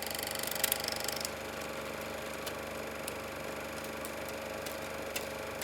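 Super 8 sound film playback running on after the music has ended: a steady hum with a patch of crackle about a second in and scattered single clicks.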